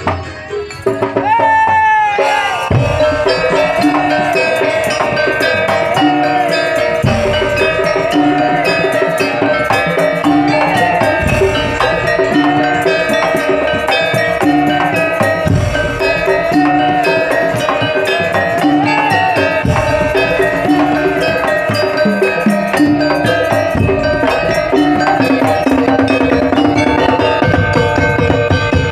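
Madurese daul music played live: a steady beat of drums and pitched gongs and bells, with a wavering lead melody over it. After a brief thinner opening, the full band comes in about two seconds in.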